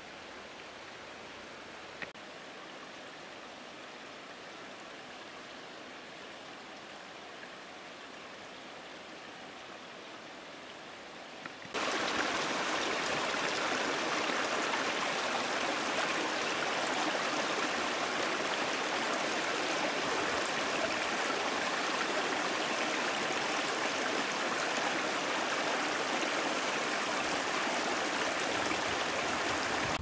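A small stream running over stones, a steady, even rush of water that cuts in abruptly about twelve seconds in and is much louder than the faint, even forest hiss before it.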